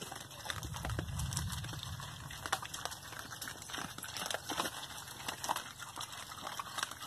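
Pigs eating wet swill: irregular wet smacking, chomping and sloshing as they root through the slop.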